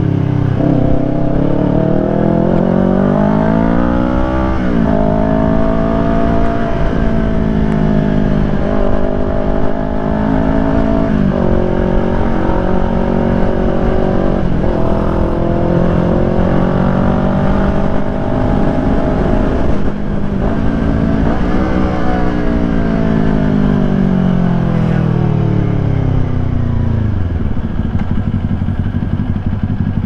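Kawasaki Ninja 400's parallel-twin engine through a Yoshimura R11 full exhaust system, heard from inside the rider's helmet. The revs climb and drop several times with each gear change, hold steady for a while, then fall away to idle near the end.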